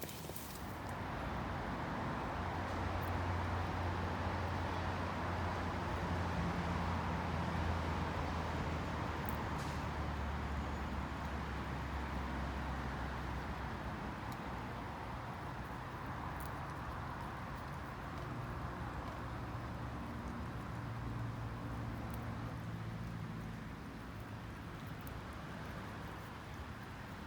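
Passing road traffic: a vehicle's low engine hum swells for about ten seconds and fades, then a second, weaker one follows, over a steady outdoor background.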